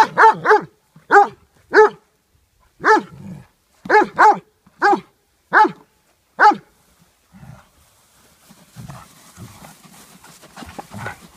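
Beauceron play-barking: about a dozen short, deep, loud barks, some in quick pairs and triplets, over the first six or seven seconds. The barking then stops and only faint low sounds remain.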